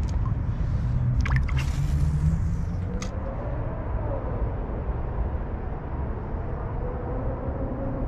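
Small splashes and drips of water as a released crappie goes back into the river, three short ones in the first three seconds, over a steady low rumble.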